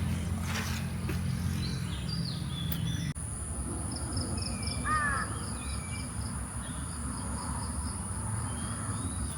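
Outdoor nature ambience: scattered bird calls, with a steady high insect drone and a pulsing insect trill of about three pulses a second after a cut about three seconds in.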